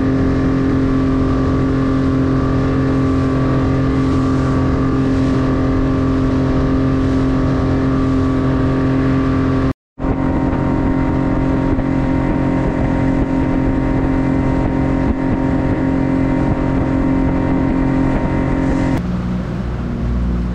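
Motorboat engine running steadily at speed, with a brief break about ten seconds in; near the end the engine note drops as the throttle is eased back.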